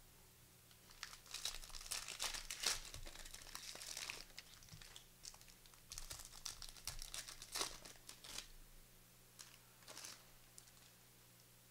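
A trading-card pack wrapper being torn open and crinkled by hand, in clusters of sharp crackling that come and go for most of the stretch.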